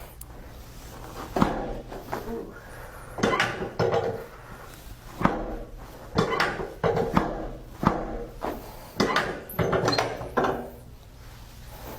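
A series of about seven sharp joint cracks from chiropractic adjustments, coming irregularly a second or two apart.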